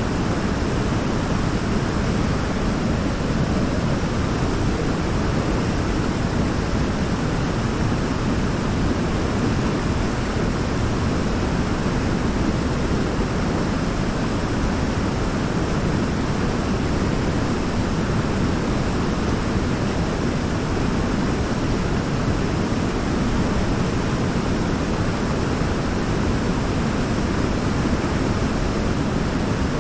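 River water pouring over a large rock in a small waterfall: a steady, unbroken rushing roar.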